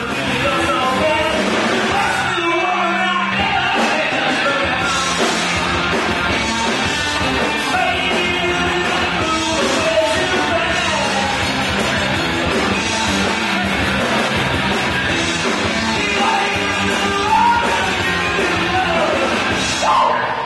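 Live rock band playing a song with vocals, continuous and loud.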